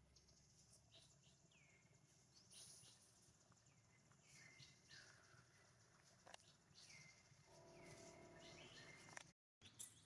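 Near silence with faint outdoor ambience and many short, high animal calls that drop sharply in pitch and level off, repeated every second or so. Near the end there is a brief, lower pitched call, and the sound cuts out completely for a moment.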